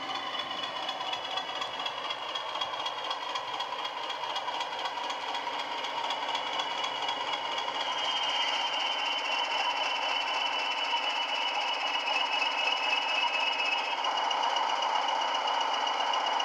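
Class 20 diesel engine sound from an SWD sound decoder, played through a megabass speaker fitted in the fuel tanks of a Bachmann OO-gauge Class 20 model locomotive. The engine runs steadily as the model travels, growing gradually louder.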